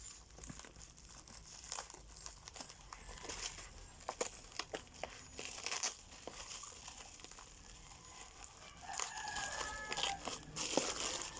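Plastic packaging crinkling and tearing as a pack of kwitis bottle rockets is unwrapped, with scattered clicks and rustles. About nine seconds in, a rooster crows once in the background.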